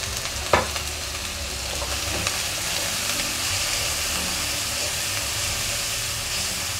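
Chicken pieces and ground spices sizzling and frying in a hot nonstick wok after a splash of water, stirred with a wooden spatula: the spice-roasting (bhuna) stage, with the water there to keep the masala from burning. A single sharp knock comes about half a second in.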